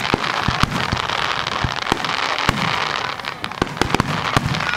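Fireworks finale: a rapid, irregular barrage of aerial shell bursts, several bangs a second, over a continuous crackling hiss.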